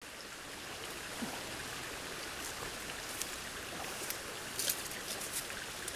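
A stream running steadily as an even rushing hiss, with a few light clicks and rustles between about three and five seconds in.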